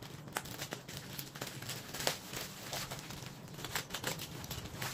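Plastic shipping mailer crinkling as it is slit open with a box cutter, with irregular crackles and scrapes.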